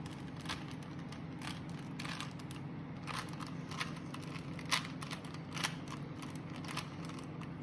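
3x3 Rubik's cube being scrambled: its plastic layers twisted over and over, giving an irregular run of short clicks, about two a second, over a steady low hum.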